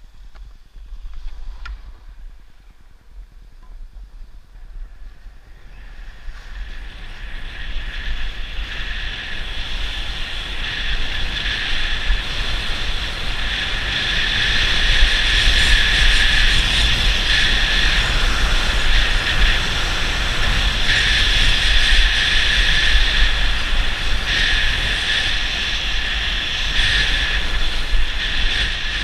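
Skis sliding and scraping over groomed, hard-packed snow, with wind buffeting the microphone. The hiss and rumble build from about six seconds in as speed picks up, then stay steady and loud.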